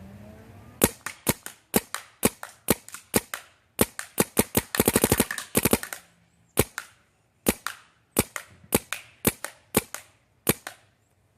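Planet Eclipse Geo 3.1 paintball marker with a Shaft 4 barrel firing many sharp shots, in quick strings of several shots a second with a very fast rapid-fire burst about halfway through, then slower spaced shots near the end.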